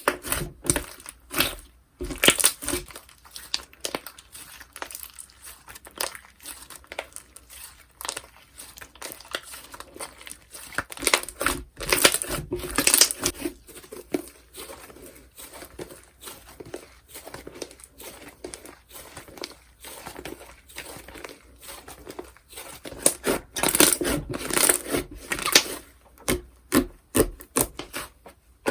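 Slime being squeezed, poked and stretched by hand, giving dense, irregular clicks and pops that come thickest about halfway through and again near the end.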